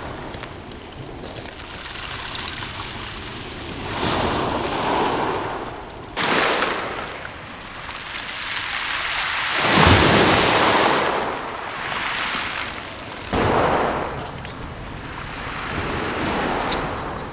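Small waves breaking on a pebble beach and washing back, in several swells of surf noise, the loudest about ten seconds in.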